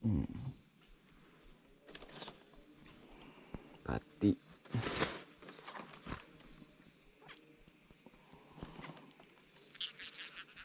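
Steady high-pitched chorus of insects, such as crickets or cicadas, in riverside forest. About four to five seconds in come a few short sharp knocks and brief calls.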